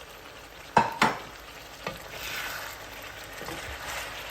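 Two sharp knocks a little under a second in, then chicken and tomatoes sizzling steadily in the karahi.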